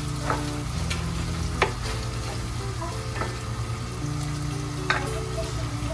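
Sliced red onion and garlic sizzling in oil in a pot while a wooden spatula stirs them, with a few sharp clicks as the spatula knocks against the pot.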